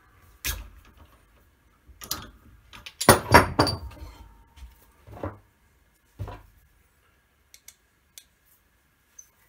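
Steel die and hydraulic press parts being handled: a string of metal clanks and knocks, the loudest cluster about three seconds in, then a few light ticks near the end.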